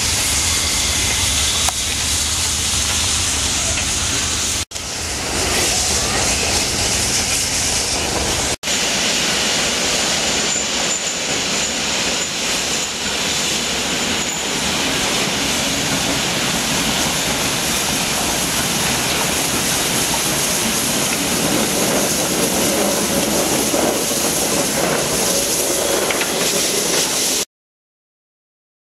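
Steam locomotive moving slowly with a steady loud hiss of steam blowing from its open cylinder drain cocks.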